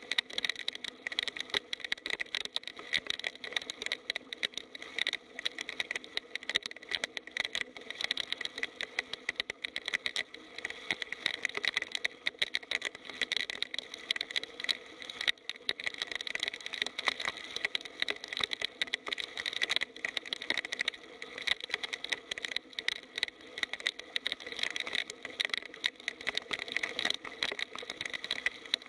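Heavy rain falling: a dense, irregular patter of drops over a steady high-pitched hum.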